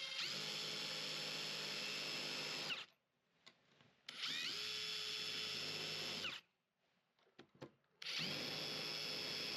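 Power drill running in three spells of two to three seconds each, its motor whine rising as it spins up and falling as it stops, with a few light clicks in the pauses between.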